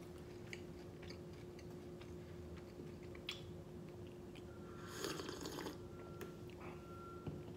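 Faint mouth sounds of chewing with small clicks, then a short sip from a mug about five seconds in. A faint steady hum runs underneath.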